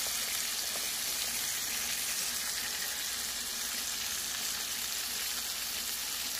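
Baby carrots, red bell pepper strips and chopped onion sizzling steadily in melted butter in a skillet as they sauté.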